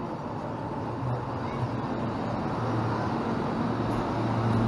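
Electric tram pulling into the stop and sliding past close by: a steady low motor hum over rolling noise that grows louder toward the end.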